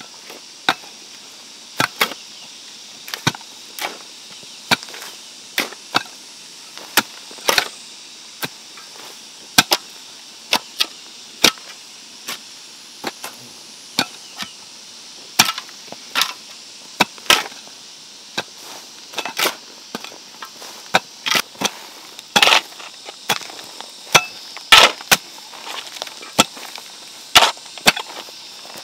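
A hand tool striking again and again, about once a second at an uneven pace, each hit a sharp chop-like knock, coming faster and louder in the second half, over a steady faint high hiss.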